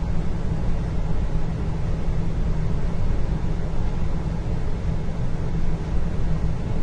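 Indoor ambience: a steady low rumble with a faint even hiss over it, no distinct events.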